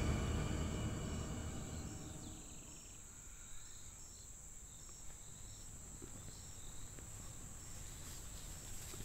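Insects buzzing in a steady high drone, with a short high chirp repeating about twice a second. A film score fades out over the first two seconds.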